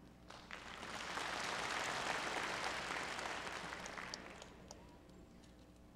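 Audience applause in an auditorium. It builds over about a second, holds, and fades away after about four seconds, with a few single claps near the end.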